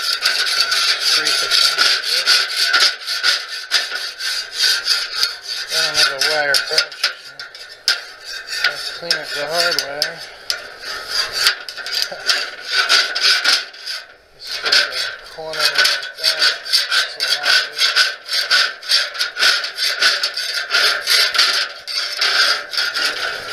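Metal spatula scraping back and forth across the steel grate of a charcoal grill, cleaning it: fast, repeated rasping strokes with a short pause about two-thirds of the way through.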